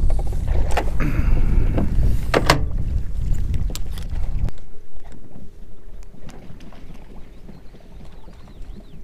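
Boat running fast across choppy water: a heavy low rumble with wind on the microphone and a few sharp slaps of the hull on the chop. About halfway through it cuts to a much quieter scene: light water sounds and a faint steady hum.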